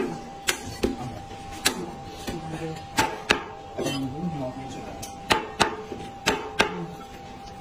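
Meat cleaver chopping a roast bird on a thick wooden chopping block: about nine sharp chops, mostly in quick pairs about a third of a second apart.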